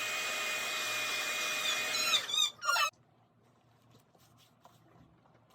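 Blow dryer running steadily, reheating a freshly applied sneaker sole protector to seal its adhesive. A little over two seconds in, its pitch wavers and it cuts off, leaving near silence with a few faint ticks.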